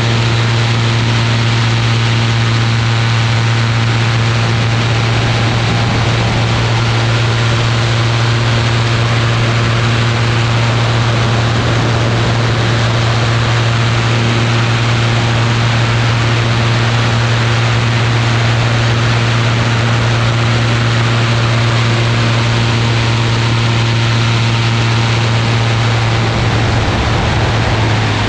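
Ultralight aircraft's engine and propeller running steadily in flight, a constant drone over the rush of wind on the microphone. Near the end the engine note wavers and settles a little lower.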